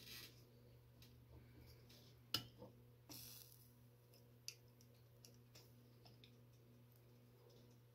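Near silence: faint clicks and taps of soldering work on an RF power transistor's leads over a steady low hum, the sharpest click about two and a half seconds in and a short hiss just after three seconds.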